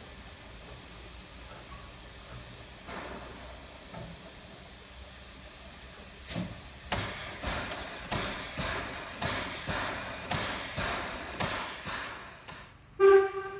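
Narrow-gauge steam locomotive 99 7245-6, a 2-10-2 tank engine, hissing steam while standing, then pulling away with exhaust chuffs about two a second that begin a little after six seconds in. Near the end comes a brief, loud tone.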